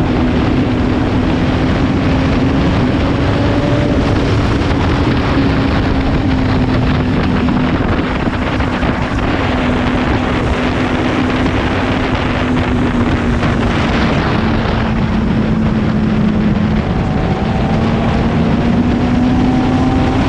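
Motorcycle engine running at a steady cruise, with wind rushing over the microphone. The engine note sags slightly and then climbs again near the end.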